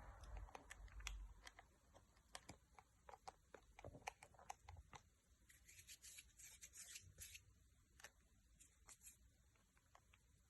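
Faint handling sounds of a phone being worked on by hand: scattered light ticks and taps, with a short, soft, high rubbing scratch around the middle.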